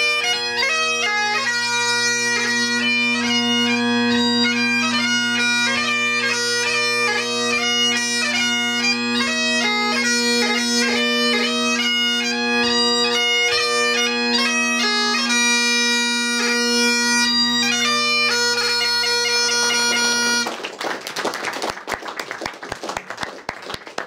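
Great Highland bagpipe playing the close of a march, the chanter melody over steady drones, which stops about twenty seconds in. Applause from a small audience follows.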